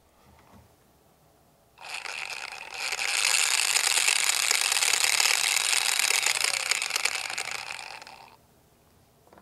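Lippert Tuson RV slide-out electric motor running with its gearbox cover off: a dense, fast whirr of the exposed spur gears meshing. It starts about two seconds in, runs steadily, and winds down near the end.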